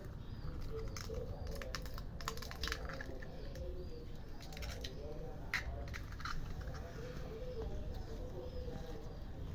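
Irregular sharp clicks and taps of street cats eating eggs, over a low outdoor rumble. Pigeons coo in the background.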